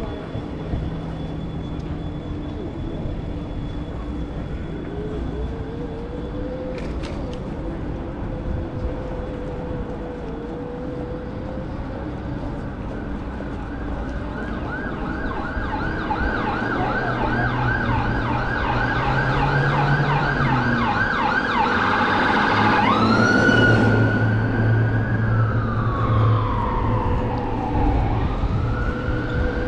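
City street traffic noise, then about halfway an emergency vehicle siren comes in with a fast yelp that grows louder. Near the end it switches to a slow wail that falls and then rises again in pitch.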